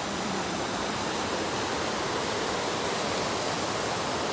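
Small waterfall: water pouring over a low ledge into a creek pool, a steady rush.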